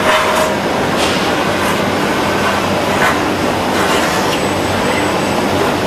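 Steady machine noise from an industrial robot cutting and finishing cell, with short hisses or clicks at irregular intervals about a second apart.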